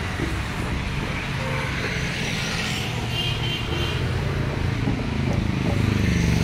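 Road traffic: a motor vehicle's engine running along the road, getting louder near the end as it comes closer.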